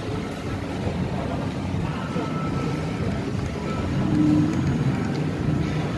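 Mall food court ambience: a steady din of the crowded hall with background music playing.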